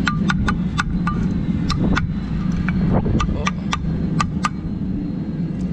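Steel brick trowel knocking on bricks and mortar as bricks are tapped into place: a quick, irregular run of sharp clicks over a steady low rumble.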